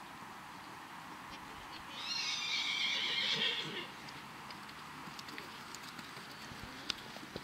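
A horse neighs once, a whinny of nearly two seconds about two seconds in, followed by faint clicks of hoofbeats.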